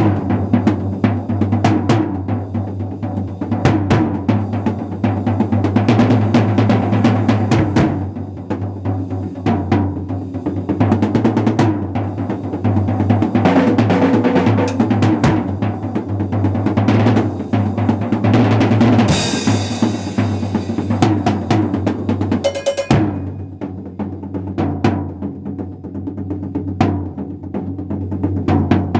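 Acoustic drum kit played as a fast, loud solo: rapid snare and tom strokes with bass drum underneath. A cymbal washes out for about a second around two-thirds of the way through.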